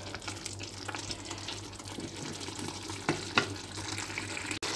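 Wooden spatula stirring a simmering tomato sauce in a frying pan, the sauce sizzling steadily with small ticks and scrapes. Two sharp knocks come about three seconds in.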